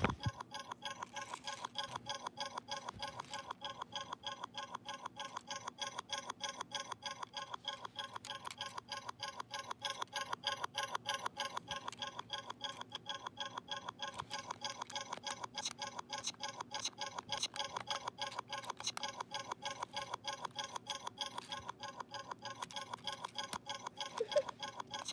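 VTech Go! Go! Smart Wheels tow truck's speaker giving a steady stream of short, evenly repeating electronic pulses, several a second, a malfunction of the toy's low batteries.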